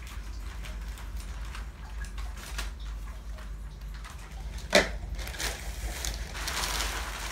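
Plastic mailer bag crinkling and rustling as it is handled and pulled open, with one sharp crack about five seconds in and a longer burst of crinkling near the end. A steady low hum runs underneath.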